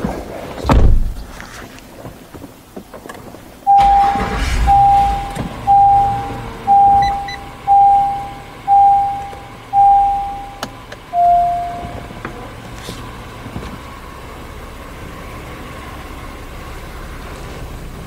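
A car door shuts with a thud. About three seconds later the 2016 Honda Pilot's 3.5-litre V6 starts and settles into a steady idle. Meanwhile the dashboard chime beeps seven times about a second apart, then once at a slightly lower pitch.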